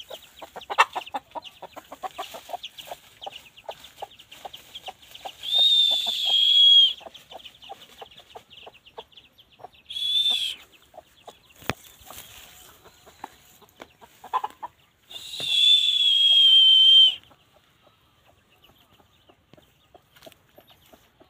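Domestic hen clucking in quick, short notes that thin out after the middle. Three loud, high, drawn-out calls cut across it: two of about a second and a half to two seconds each, and a short one between them.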